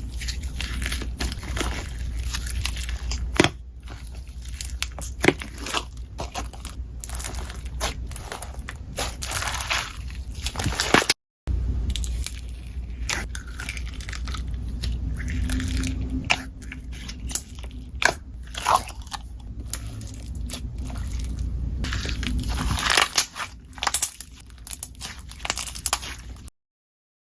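Slime being squeezed and poked by hand, giving a steady run of irregular crackling clicks and small pops over a low rumble.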